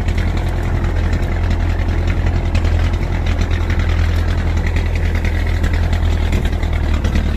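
Offroad vehicle's engine running steadily at a low, even pitch, close by.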